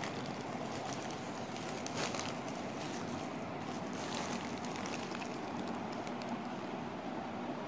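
Plastic bags and plastic-wrapped clothing packs crinkling and rustling as they are handled, with a few sharper crackles about two seconds in and again around four to five seconds, over a steady background hiss.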